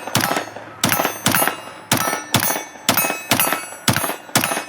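Pistol fired in steady succession, about two shots a second, nine shots in all, each followed by a short metallic ringing.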